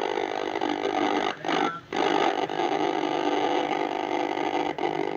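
Samsung CRT television's speaker giving a steady, dense buzz instead of clear programme sound, the set's sound fault. It cuts out briefly twice about a second and a half in.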